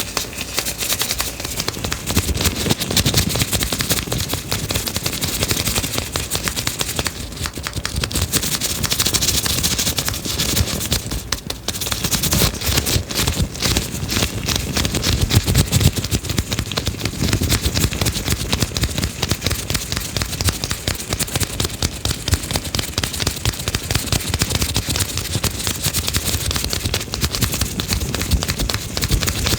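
Fast, dense clicking and crackling close to the microphone, going on without a break.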